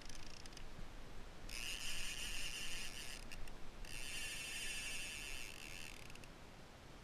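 Fishing reel's ratchet clicker buzzing as line is pulled off it, in two spells of about two seconds each: a fish taking line.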